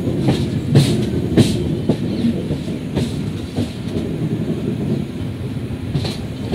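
Passenger train rolling on the track: a steady rumble with irregular wheel clicks over rail joints. The sharpest knocks come about a second in and again near the end.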